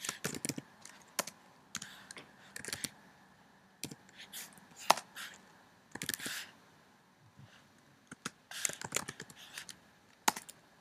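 Computer keyboard typing: short runs of keystrokes broken by pauses of a second or so.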